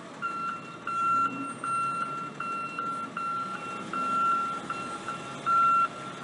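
Box truck's reversing alarm beeping over and over at one steady pitch as the truck backs up, over the low running of its engine.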